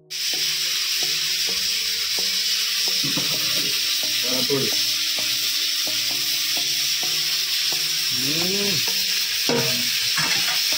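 Steady sizzling hiss like food frying in oil, holding level throughout, with faint music underneath.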